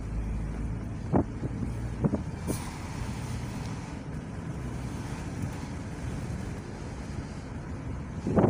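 Steady engine and road noise inside a moving car's cabin, with a few short knocks about a second and two seconds in, and a louder one near the end.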